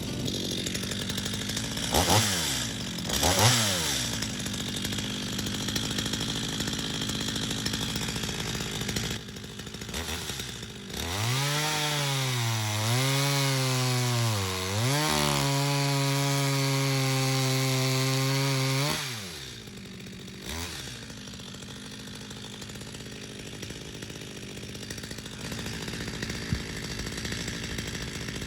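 Stihl MS250 two-stroke chainsaw running: the throttle is blipped twice, then the saw revs up and wavers before holding a steady high speed for several seconds, then drops back to idle. This is the saw cutting the felling notch in a small Japanese cedar.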